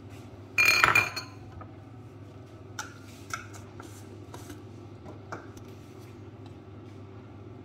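A metal utensil clattering against a stainless steel mixing bowl: one loud ringing clink about a second in, then a few light taps. A steady low hum runs underneath.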